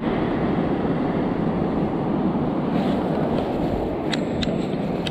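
Steady, even roar of ocean surf and wind, with a few faint ticks about four seconds in.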